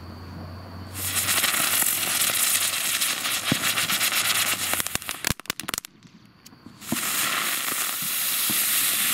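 Ground fountain firework spraying sparks with a steady crackling hiss. About five seconds in, a few sharp cracks come, then a brief lull before the hissing resumes.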